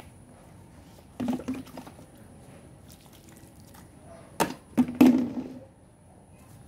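Metal hand trowel digging and scraping into wet garden soil, with a scrape about a second in and a few sharp knocks and scrapes, the loudest, around four and a half to five and a half seconds in.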